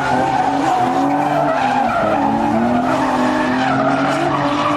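Drift cars at full throttle, engine notes climbing and falling as they are revved, over a continuous screech of sliding tyres.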